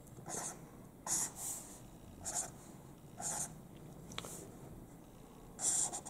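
Felt-tip marker drawing lines on a paper legal pad: a series of short scratchy strokes, about six of them, roughly a second apart.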